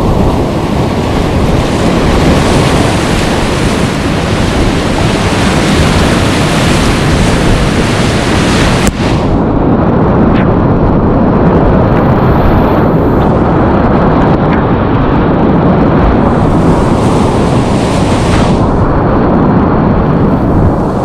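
Loud, steady rush of whitewater rapids at a high dam-release flow, heard from a kayak running through them, with water and wind buffeting the camera microphone. The sound cuts out very briefly about nine seconds in.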